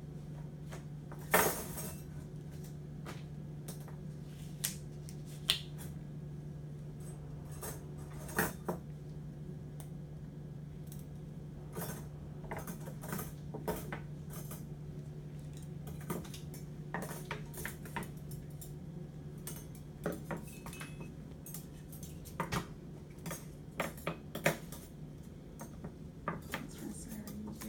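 Metal surgical instruments clinking and clattering as they are handled and laid out on a delivery table: scattered sharp clinks, the loudest about a second and a half in, over a steady low hum.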